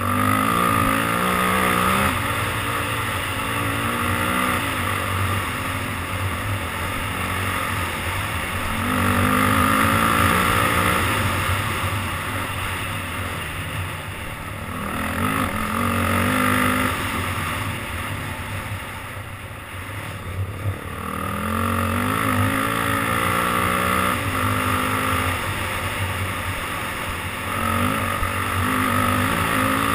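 Off-road vehicle engine under way on a dirt trail, revving up hard and easing off again and again as the rider accelerates and slows, over a steady rush of wind and riding noise.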